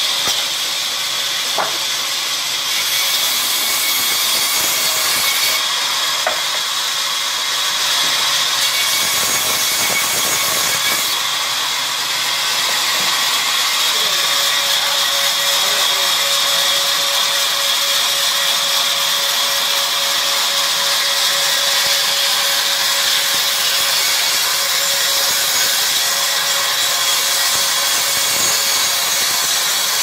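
Sawmill band saw running and cutting through timber: a steady hiss of the blade in the wood with a high whine over it, and a second steady tone joining about halfway through.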